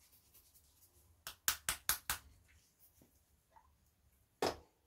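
Small hard objects being handled during painting: a quick run of about five sharp clicks and taps about a second in, then a single louder knock near the end.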